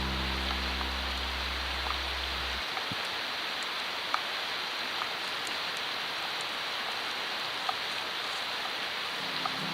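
Small wood fire in a wire-frame fire stand burning with a steady hiss and a few sharp crackles.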